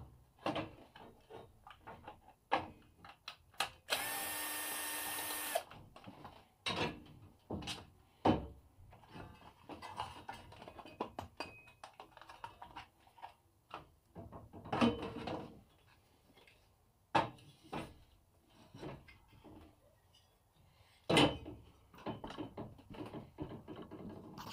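A cordless drill-driver runs once for about a second and a half, backing out the screws of the plastic engine shroud. Around it, hard plastic and metal parts knock and clatter as the shroud is lifted off, with the loudest knocks at about 15 and 21 seconds.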